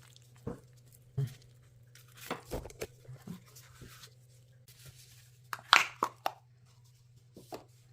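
Kitchen handling noises as crème fraîche is scooped into the salad bowl: scattered light knocks and scrapes of a spoon against the container and bowl, with a louder cluster of clatter a little before six seconds in.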